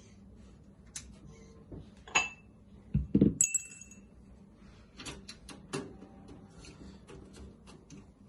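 Small screws being removed from a desktop PC's motherboard and case: scattered light clicks and taps, with two short ringing metallic clinks about two and three and a half seconds in and a dull thud about three seconds in.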